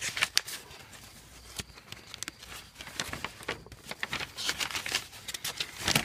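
Paper and plastic rustling and crinkling as things on a cluttered workbench are handled, with scattered light clicks and taps. It is busiest right at the start and again over the last few seconds.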